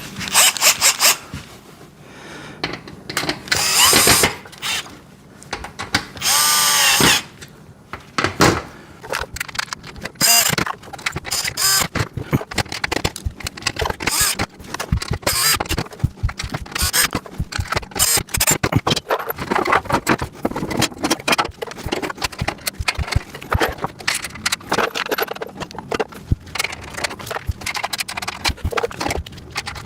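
Power drill driving bolts to fasten caster wheels to a steel parts rack, running in short bursts with its motor pitch rising as it spins up. Between the bursts come many small metallic clicks and knocks of bolts, nuts and rack parts being handled.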